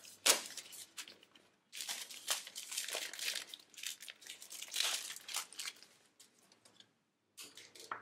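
Clear plastic shrink-wrap being torn and peeled off a smartphone's cardboard box, crinkling in bursts: a long stretch in the middle and a short one near the end.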